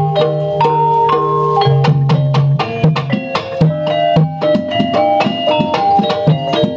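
Banyumas gamelan music accompanying an ebeg dance: struck tuned percussion playing a quick run of notes over drum strokes and low held notes.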